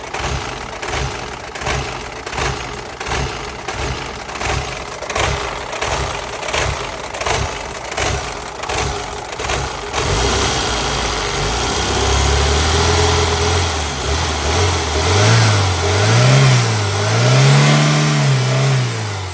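2000 Volvo V40 engine idling roughly with an uneven, lumpy pulse, then held at higher revs about halfway through and revved up and down twice near the end. The rough running comes from a faulty mass air flow sensor (fault code P0102).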